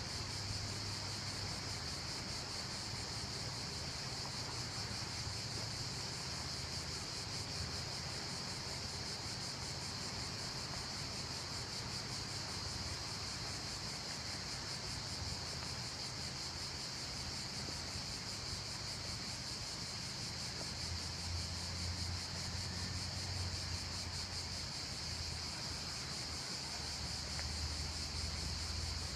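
Steady high-pitched shrilling of cicadas in the pines, an unbroken rapidly pulsing buzz. A low hum sits underneath and grows stronger about two-thirds of the way through.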